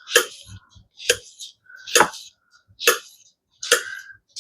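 Kitchen knife chopping cucumber on a cutting board: five sharp, even strokes about a second apart.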